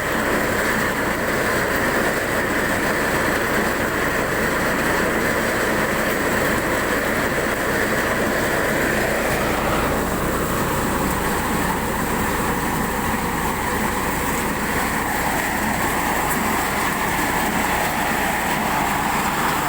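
Corn harvester running steadily, a continuous mechanical noise of its engine and machinery, its tone shifting a little about halfway through.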